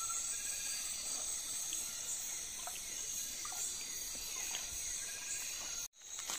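Steady high-pitched chorus of night insects such as crickets, with a few faint ticks; the sound breaks off abruptly for a moment near the end.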